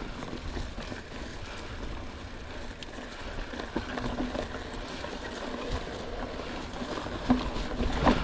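Mountain bike rolling over grass and dirt: a steady rushing of wind and tyre noise with light rattling from the bike, and a couple of sharper knocks near the end as it rides over bumps.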